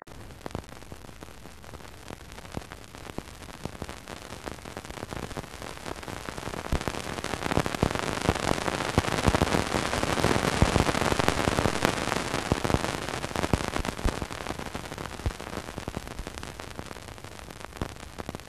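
Space-probe radio recording converted to sound: a hiss of static full of crackles, swelling louder in the middle and easing off again toward the end.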